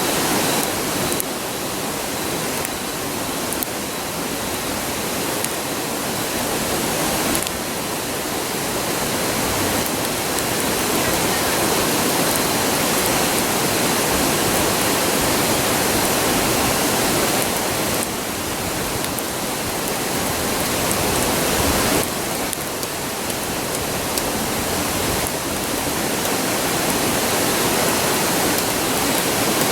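A river rushing close by, a steady roar of water, with a few faint crackles from the campfire.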